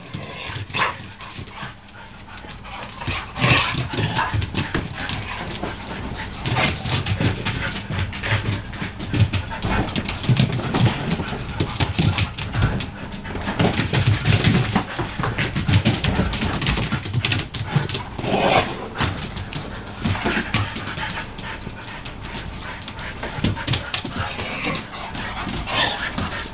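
Huskies play-fighting, vocalizing continuously with whines, low grumbles and the odd bark.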